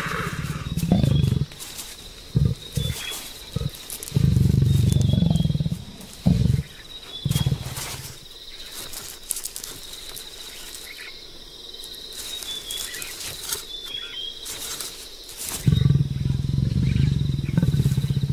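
Leopard growling in loud bursts, several short ones and a longer one in the first half, a quieter stretch in the middle, then sustained growling near the end.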